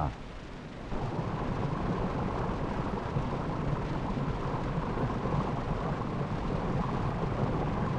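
Steady rushing, rumbling noise with no clear pitch, coming in about a second in.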